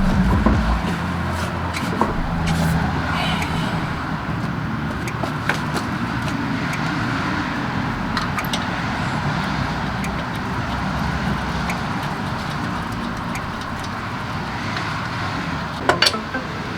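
Steady vehicle noise like passing road traffic, with scattered small clicks and one sharper click near the end.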